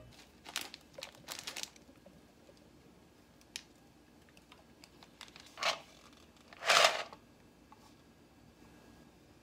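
Quiet kitchen handling sounds. A plastic pasta packet crinkles for the first second or two. Later come two short clattering, scraping sounds, the second the loudest, as a stainless steel colander of clams is handled and set down.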